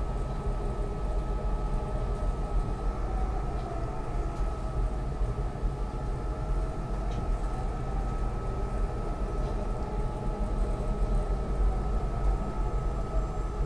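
Market-Frankford Line elevated train running between stations, heard from inside the car: a steady rumble of wheels on rail with a constant high hum and faint tones that slowly dip and rise.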